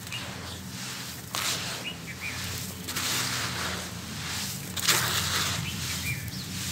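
Dry, crumbly sand-cement mix being crushed by hand and dropped back onto a heap: a continuous gritty crumbling hiss of falling grains, with two louder crunches, one about a second and a half in and one about five seconds in.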